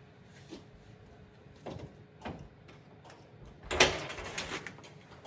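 A door being opened: a few light clicks and knocks, then a louder rattling scrape lasting about a second, a little under four seconds in.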